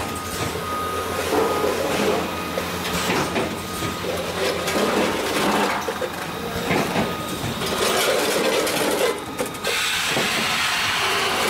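Automatic snack packaging machine running, a bagger with a multi-head weigher, clattering with many irregular clicks and knocks. A steadier hiss comes in near the end.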